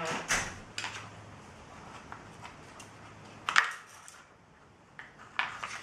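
A few sharp clicks and knocks from hand tools and parts being handled while screws are taken out of a car door lock mechanism's plastic shroud. The loudest knock comes about three and a half seconds in.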